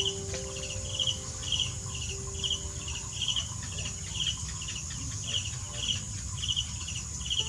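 Rhythmic chirping like a cricket's, about two chirps a second, each a quick trill, over a steady high hiss.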